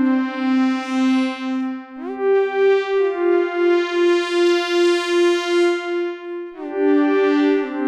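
MOK Miniraze software synthesizer playing held notes with bright overtones, sliding in pitch from one note to the next twice, with the volume pulsing about two to three times a second.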